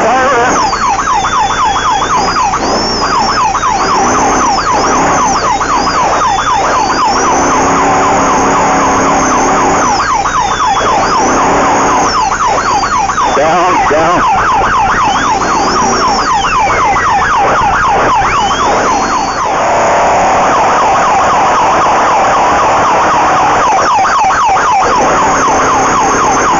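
Off-road race vehicle's engine running hard at speed, with a high whine that rises and falls again and again as the revs change.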